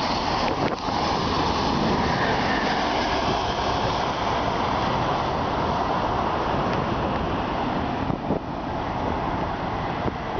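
First Great Western HST (InterCity 125) passing close by and running away along the line: a steady rumble of wheels on the rails with the power car's diesel engine, easing off after about eight seconds as the train draws away. Wind buffets the microphone and surf sounds underneath.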